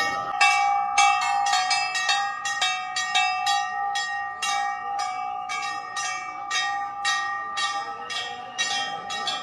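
Large brass temple bells struck again and again by worshippers, about two strikes a second at an uneven pace. Several bell tones overlap and ring on between the strikes.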